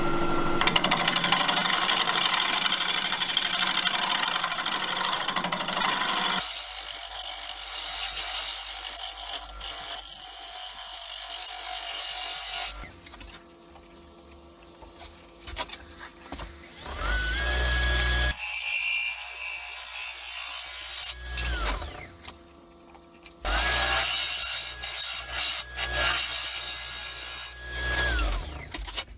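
Wood lathe spinning a bowl while a negative-rake carbide finishing tool scrapes its inside, a steady noisy cut as shavings come off, in several clips joined by abrupt cuts. Twice the lathe's motor whine rises to a steady pitch and later falls away as the lathe speeds up and slows down.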